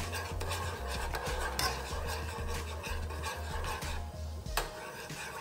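Metal spoon scraping and stirring in a pot of broth, dissolving gochujang, in many short strokes. It pauses briefly about four seconds in, then gives a single clink. Background music with a low bass pulse runs underneath.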